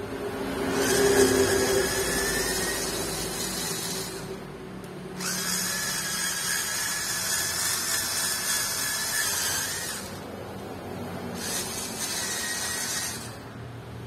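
Cordless electric screwdriver whining in three runs, about three, five and two seconds long, as it works a stubborn screw out of a laptop's underside.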